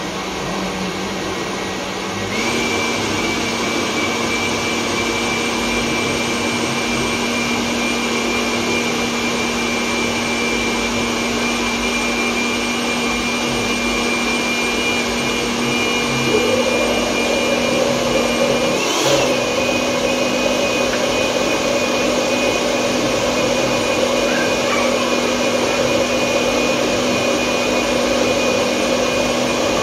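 Countertop blender motor running continuously, puréeing a thick red chili paste for kimchi. Its steady whine steps up slightly in pitch about two seconds in, and there is a brief jolt in the note about two-thirds of the way through.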